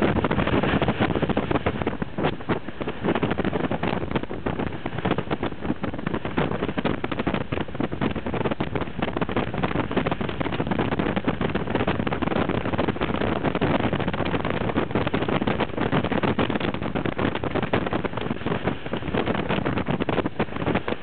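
Wind buffeting the microphone on a moving harbor cruise boat, over the steady rush of its engine and the water, with constant fluttering gusts.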